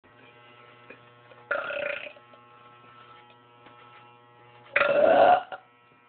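A woman belching twice: a short belch about a second and a half in, then a longer, louder one near the end.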